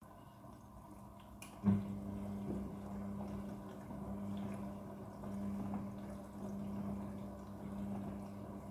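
Midea front-loading washing machine running a quick-wash cycle: a steady hum with water running inside the drum. A sharp click comes a little under two seconds in, and the machine is louder after it.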